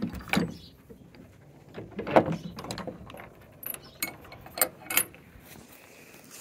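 A metal chain and iron ring latch on a wooden stall door clinking and rattling as they are fastened by hand, in a string of separate knocks and clinks, the loudest about two seconds in.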